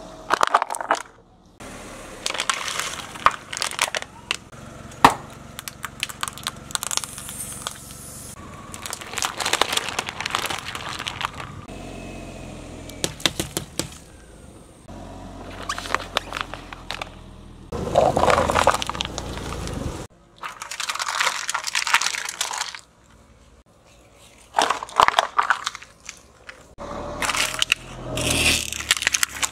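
A car tyre rolling over and crushing plastic butter tubs, squeeze-pop packets and candies. There are several separate bouts of cracking, crunching and crinkling, one after another, with short quieter gaps between them.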